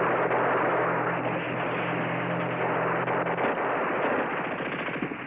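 Battle sound effects on an old TV soundtrack: the sustained roar of an explosion with crackling gunfire, tailing off near the end.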